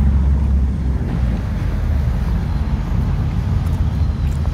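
Steady low rumble of road traffic going past, with a faint engine hum underneath.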